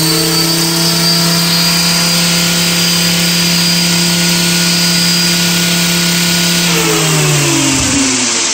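Blade 450X electric RC helicopter's brushless motor and rotors running at a steady speed in idle up, with flat pitch, giving a steady whine. About seven seconds in the whine falls in pitch as the rotor winds down.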